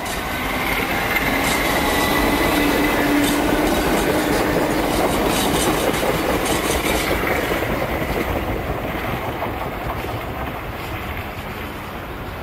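Third-rail slam-door electric multiple unit moving off, its nose-suspended (axle-hung) traction motors whining over rail and wheel noise. The whine rises in pitch over the first few seconds, and the sound then slowly fades as the train draws away.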